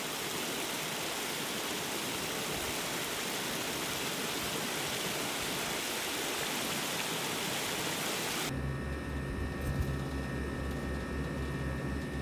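Stream water spilling over a low concrete weir, a steady rushing splash. About eight seconds in it cuts off abruptly and gives way to a low, evenly pulsing hum with steady tones.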